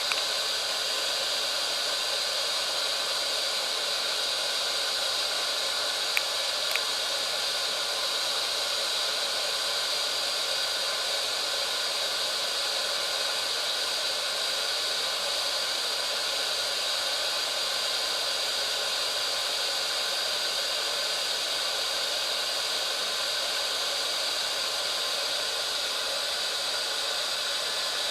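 Hot air gun of a Gordak 863 rework station blowing steadily: the fan-driven air stream makes an even hiss. Two light clicks come about six seconds in.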